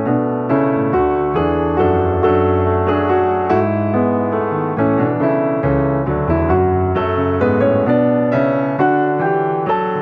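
Background piano music, a steady flow of notes struck about twice a second.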